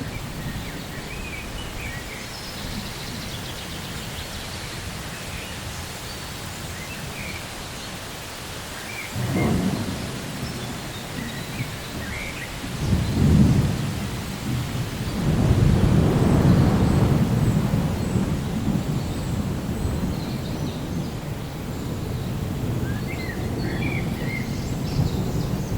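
Thunderstorm: steady rain with rolling thunder. A short rumble comes about a third of the way in, then a sharper one, then a long, loud rumble past the middle that slowly dies away.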